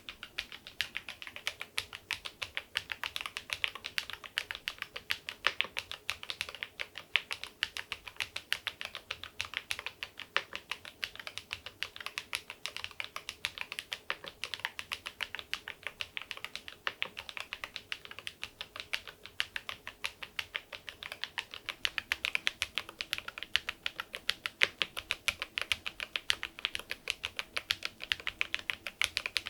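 Typing on a Keysme AIM04 HE aluminium keyboard with magnetic (Hall-effect) switches and swapped keycaps: a rapid, steady run of keystroke clacks.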